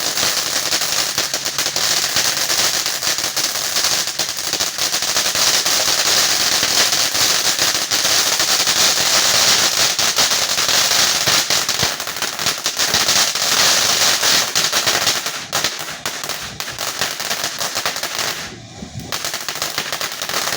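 Firecrackers going off in a long, rapid crackling volley of sharp pops. The pops stop briefly near the end, then pick up again more quietly.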